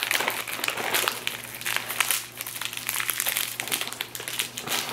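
Plastic snack wrapper of a single-serve SkyFlakes cracker packet crinkling as it is pulled open by hand and the crackers are taken out: a run of irregular crackles.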